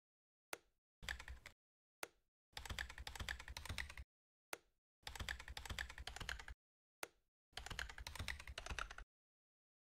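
Computer keyboard typing in four short bursts of rapid keystrokes, each burst preceded by a single sharp click about half a second before. The keystrokes are values being typed into number fields.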